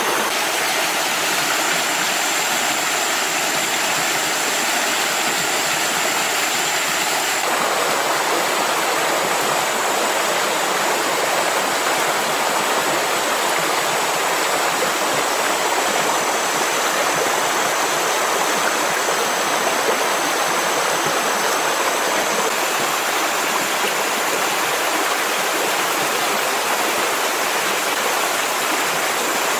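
Steady rushing of flowing water, a stream or small waterfall, running without a break.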